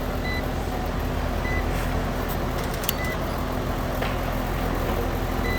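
Outdoor air-conditioning condenser unit running steadily, with a constant low hum under an even rushing noise. A faint, short, high beep sounds now and then.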